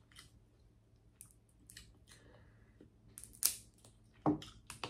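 Close-miked eating sounds: a handful of short, sharp cracks and clicks of a shellfish claw's shell being cracked and picked apart, with some chewing. The loudest crack comes about three and a half seconds in.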